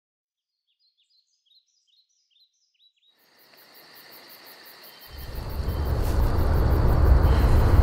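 A run of faint, quick bird chirps, short high notes falling in pitch, then outdoor woodland ambience fading in, dominated from about five seconds in by a heavy, uneven low rumble.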